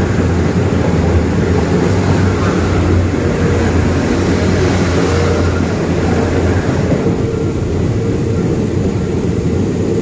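Steady rumble and rush of running rail noise heard inside a passenger carriage with open windows, as another train passes close alongside in the opposite direction. The hiss of the passing train is strongest in the first five seconds or so and eases a little after about six seconds, leaving the carriage's own low rumble.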